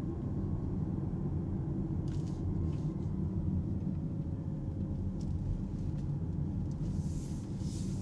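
Alpine A390 electric car driving at town speed: steady low tyre and road rumble inside the cabin, with no engine note. A few faint ticks come about two seconds in, and a short hiss comes near the end.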